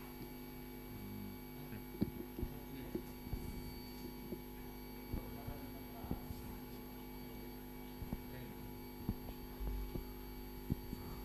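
Steady electrical mains-type hum, with faint scattered clicks and taps through it.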